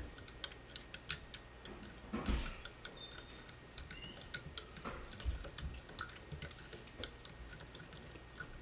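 Metal spoon stirring crystal-growing solution in a small glass jar, clinking lightly against the glass in quick, irregular ticks, with a soft low bump about two seconds in.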